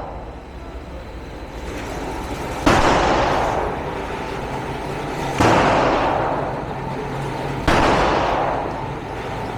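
Three single shots from a 9 mm Glock pistol, roughly two and a half seconds apart, each with a long echoing tail.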